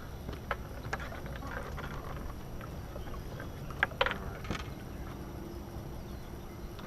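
Gear being handled in a fishing boat: a few sharp knocks and clicks, the loudest pair about four seconds in, over a low steady rumble.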